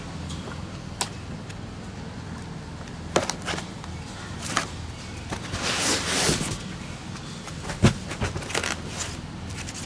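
Parts being pulled from a foam-packed shipping box: scattered clicks, knocks and scrapes, a rustling burst of packaging about six seconds in and a sharp knock soon after. A lawnmower engine runs steadily underneath as a low hum.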